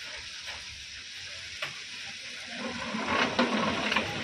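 Indian Railways freight train of open wagons rolling slowly along the track, its steel wheels on the rails giving a steady hiss. A single click comes about a second and a half in, and a louder rattling clatter runs through the last second and a half.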